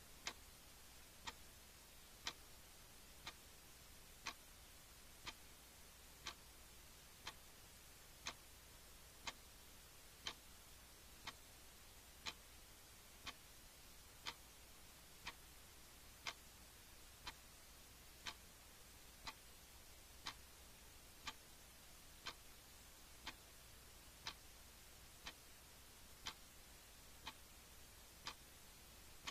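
A clock ticking steadily, about one tick a second, over faint hiss.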